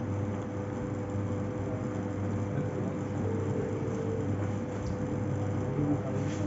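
Treadmill incline motor running steadily during calibration, driving the deck toward its maximum incline position: a constant low hum with a brief higher tone a little past the middle.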